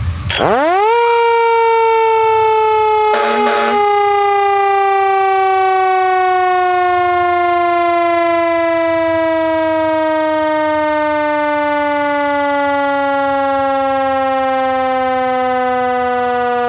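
Siren winding up within about a second, then slowly winding down, its pitch falling steadily. A short noisy blast cuts in about three seconds in.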